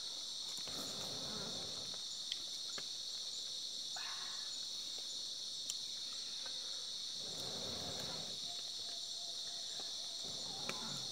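Steady, high-pitched chorus of insects, unbroken throughout, with low voices murmuring a few times beneath it and a couple of faint clicks.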